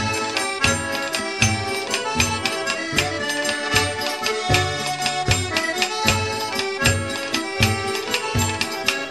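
Instrumental folk-style music with sustained melody notes over a steady bass beat, about two pulses a second.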